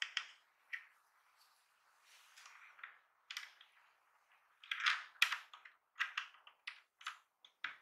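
Sharp, irregular plastic clicks and clacks of a compact mechanical keyboard's keycaps and Cherry MX switches being pressed and handled, sparse at first and coming thicker and louder from about three seconds in.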